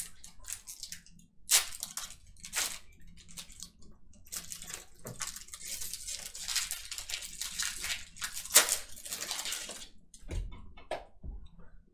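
A pack of trading cards being torn open and its wrapper crinkled: sharp crackles, then a longer stretch of continuous crinkling with one loud snap, followed by two dull low thumps near the end.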